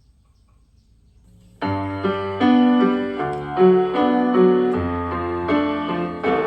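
Near silence for about a second and a half, then a song's piano intro starts abruptly, with held bass notes under repeating chords, played back through a portable Bluetooth speaker under test.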